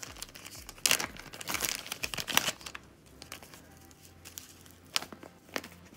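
Small plastic packaging bag crinkling and rustling as it is handled, densest in the first half, then a few light ticks and sharp clicks near the end.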